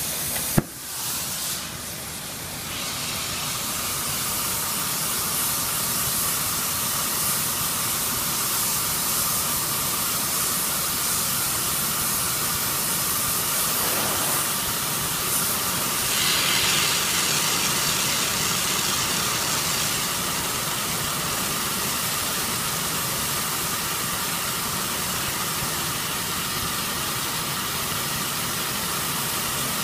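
Glassworking torch flame hissing steadily. A sharp click comes about half a second in, then the hiss dips briefly and builds back up over the next couple of seconds.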